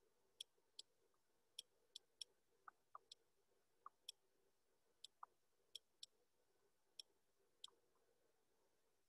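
Near silence with faint, sharp clicks at irregular intervals, a dozen or more, from handwriting on a computer screen with a pen or mouse input.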